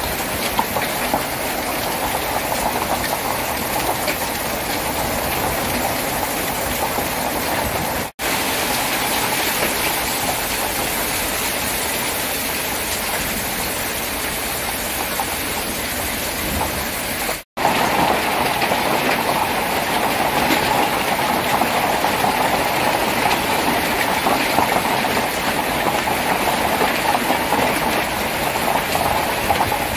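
A heavy fall of large hailstones pelting grass, asphalt and stone paving: a dense, steady rattling roar that cuts out for an instant twice.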